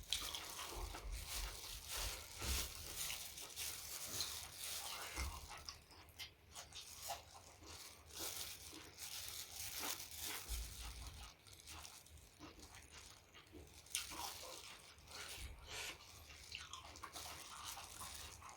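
Close-miked eating: a steady run of irregular crunches and chewing sounds from a person eating spicy Thai salad and chewy octopus.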